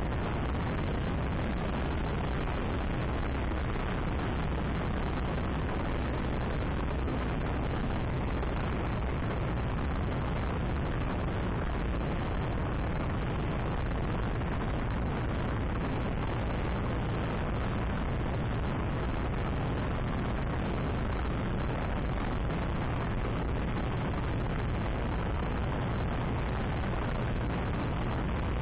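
Steady wind rush and road noise from riding a motorcycle at speed, heard as an even, low rumbling rush on an action camera's microphone.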